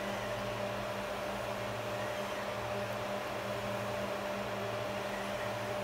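Steady electrical hum and fan-like whir from machines running in the room, with several constant tones over an even hiss.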